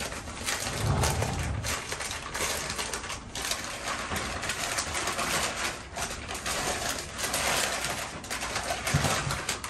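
White packing paper rustling and crinkling as a drinking glass is unwrapped by hand, with a brief low hum about a second in.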